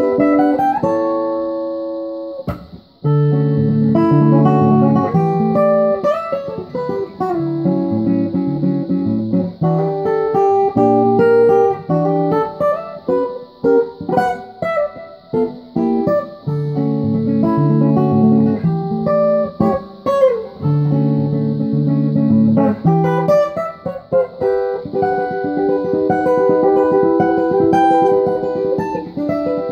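Cole Clark acoustic guitar played fingerstyle, an instrumental tune with low notes under a higher melody. The notes die away about two to three seconds in, and a sharp tap comes just before the playing resumes.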